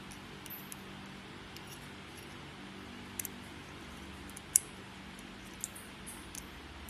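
Small, sharp metallic clicks and ticks as a slim metal tool and fingers work around a flashlight head's aluminium reflector and LED module, scattered at irregular intervals with the sharpest about four and a half seconds in, over a steady low hum.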